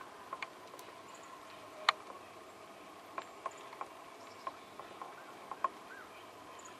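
Scattered sharp ticks and taps, about a dozen, the loudest about two seconds in, over a faint steady background with a few faint high chirps.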